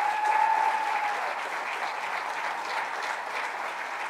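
Audience applauding, with one held, slightly rising note sounding over the clapping during the first second.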